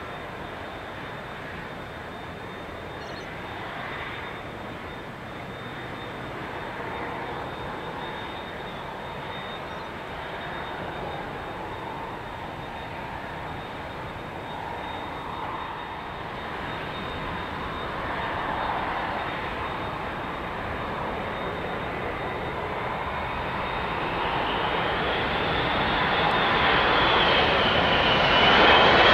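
Four Engine Alliance GP7200 turbofans of an Airbus A380 on final approach, growing steadily louder as the jet nears. A thin high engine whine runs throughout and wavers in pitch over the last few seconds as the noise peaks.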